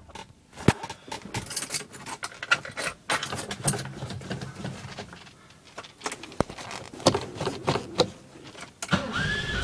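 Irregular clicks, knocks and rustling from handling the phone and car interior while settling into the driver's seat before the start.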